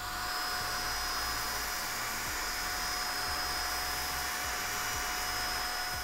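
OPOLAR cordless mini vacuum running on its low suction setting, a steady high whine over an even rush of air as it sucks up loose salt from a desk.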